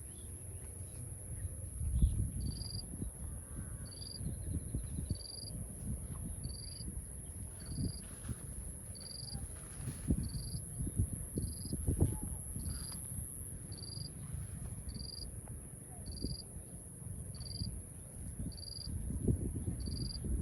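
Insects: a steady high-pitched drone, with a short high chirp repeating about once a second, over irregular low rumbles and knocks.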